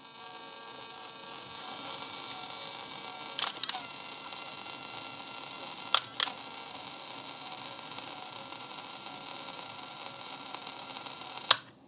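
Sony WM-190 Walkman playing a cassette at full volume through a speaker, giving a steady hiss with faint thin tones instead of clean sound: its failing electrolytic capacitors are to blame. Sharp clicks from the player's buttons sound about three and a half seconds in, twice around six seconds, and near the end.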